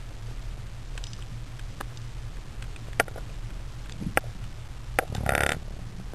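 Underwater ambience: a steady low rumble with several sharp clicks, and a short rushing burst about five seconds in.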